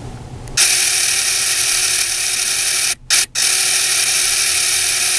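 Plastic gear train of a 1/25 scale model '32 Ford roadster whirring and ratcheting as the car is rolled back on its wheels, driving the toy engine to spin. It starts about half a second in and breaks off twice, very briefly, about three seconds in.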